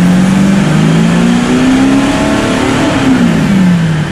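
Audi SQ5's 3.0-litre twin-turbo V6 diesel running hard on a chassis dyno: the engine pitch climbs for about two and a half seconds, then falls away over the last second.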